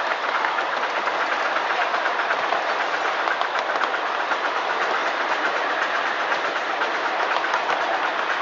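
Miniature ride-on railway train running along its track: a steady rattling clatter of the small cars and wheels, with many fast, fine clicks.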